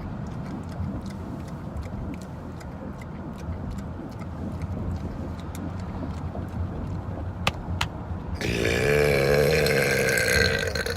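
One long, loud human burp, wavering in pitch, starts about eight seconds in and lasts about two and a half seconds. Before it there is a steady low rumble of a car's cabin with a few faint clicks.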